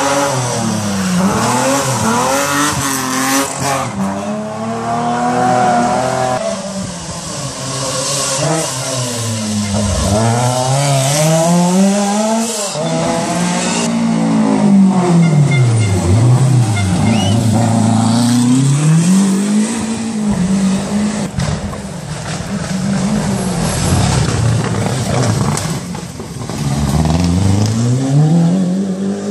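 Rally car engines revving hard and dropping away again and again as they brake, shift and accelerate through a wet hairpin, with the pitch climbing and falling several times. A steady hiss of rain and spray from the wet road runs underneath.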